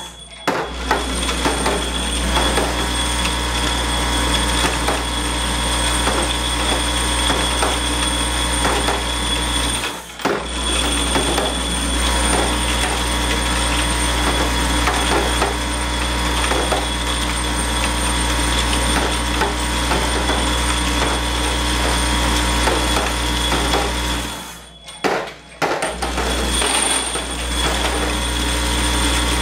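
Vibratory parts feeder for a centerless grinder running: a steady electric hum under a constant clatter of steel pins rattling across its vibrating tray. The sound briefly cuts out right at the start, again about ten seconds in, and for about a second around 25 seconds in.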